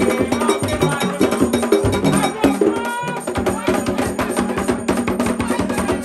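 Haitian Vodou ceremonial drumming: hand drums beaten in a fast, dense rhythm with sharp clicking strokes, with voices singing over it.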